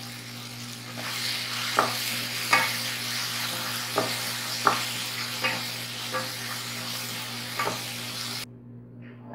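Diced vegetables sizzling as they are stir-fried in a nonstick frying pan, while a wooden spatula stirs them and knocks against the pan about seven times. The sizzle cuts off abruptly near the end.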